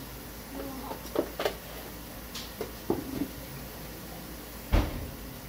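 Several light clicks and knocks of spice jars and lids being handled in a kitchen, the loudest near the end, over a steady low background noise.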